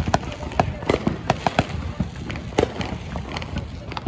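Fireworks going off: irregular sharp bangs and pops, a few each second, over a steady low rumble.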